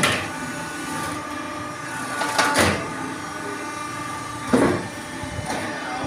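4-cavity fly ash brick making machine running with a steady hum of held tones. Three loud, short, harsh bursts break through it: at the start, about two and a half seconds in, and near the end.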